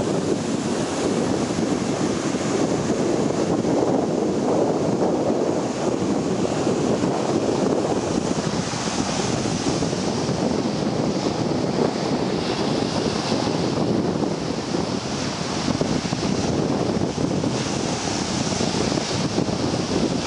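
Ocean surf breaking and washing on a beach, a steady rushing noise, with wind buffeting the microphone.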